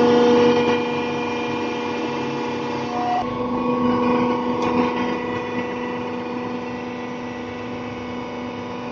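Injection molding machine running: a steady machine hum with several pitched tones. The tones change abruptly about three seconds in, and the sound is a little louder over the first half second.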